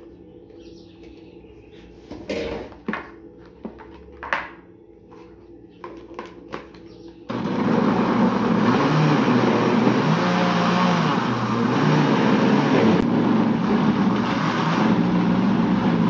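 A few knocks and clicks as herbs are pushed into a plastic blender jar and the lid is set on. About seven seconds in, the countertop blender's motor switches on suddenly and runs loud and steady with a wavering hum, chopping onions, garlic, parsley, green onion and bell pepper in oil into a green paste.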